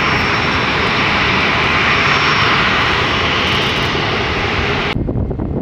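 Boeing 737 Classic's CFM56-3 turbofan engines running loud and steady, a dense roar with a faint high whine. About five seconds in the roar cuts off abruptly, leaving a low rumble.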